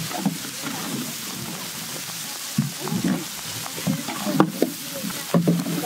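Ground spices frying in hot oil in a large metal pan: a steady sizzling hiss while the mixture is stirred with a metal spatula.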